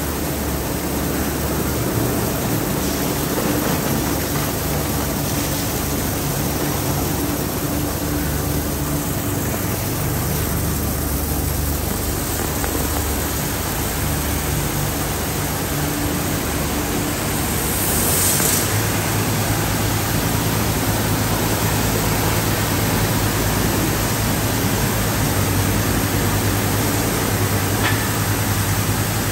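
Automatic tunnel car wash running: a steady hiss of water jets and spinning cloth brushes over the hum of motors and pumps. Roughly two-thirds of the way through there is a brief louder hiss, after which a steady low hum carries on.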